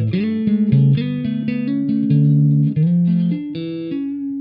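Homemade Bass VI, a Squier Jaguar short-scale bass converted to six lighter strings tuned an octave below a guitar, played electric as a lead line of plucked notes. The pitch changes several times a second, with some notes ringing together.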